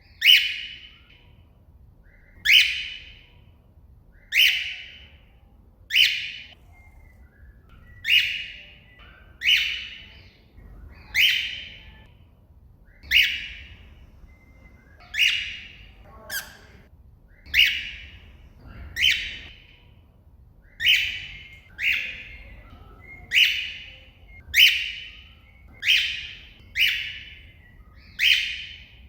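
Cockatiel giving its contact call over and over, calling out to another bird: short shrill calls, each dropping away in pitch, about one every second and a half.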